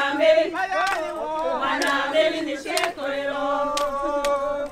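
A group of voices singing together in chorus, with a few handclaps.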